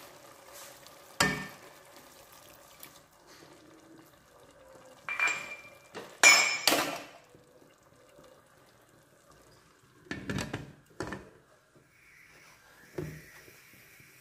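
Aluminium pressure cooker and its lid clanking as the lid is handled, set on and locked shut: a series of sharp metal knocks with a brief ring, the loudest pair about halfway through.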